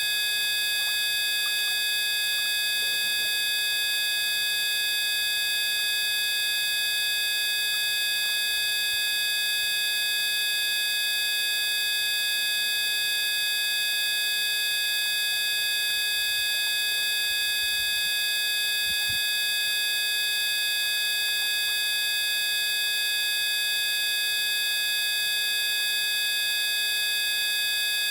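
A steady electronic buzz of several fixed tones sounding together, some low and some shrill, unchanging throughout.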